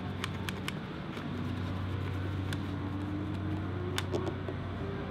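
Steady low mechanical hum in the background, with a few light clicks and taps from a motorcycle helmet's plastic visor mechanism being wiped with a microfibre cloth.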